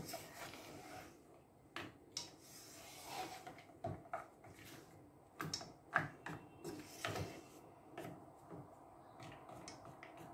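A spoon stirring chunks of chocolate in a pot, with scattered scrapes and clicks as the solid pieces knock against the pot and each other while they begin to melt.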